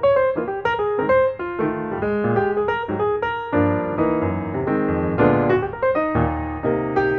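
Background piano music: a quick melody of struck notes, several a second, over chords.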